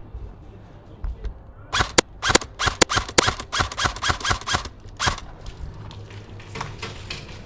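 Airsoft gunfire: a rapid, irregular string of sharp cracks, about a dozen in three seconds starting a little under two seconds in, with fainter shots following later.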